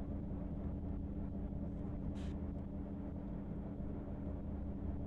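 Pen writing on paper, with one short scratching stroke about two seconds in, over a steady low background hum.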